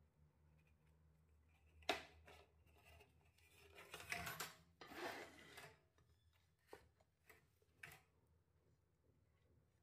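Quiet food-preparation handling: a sharp tap about two seconds in, a couple of seconds of scraping and rubbing, then two light knocks, over a low steady hum.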